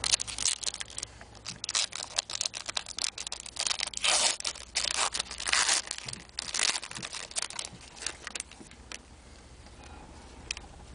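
A trading-card pack's wrapper being torn open and crinkled: a dense run of crackles and rips, loudest about four to six seconds in, dying down near the end.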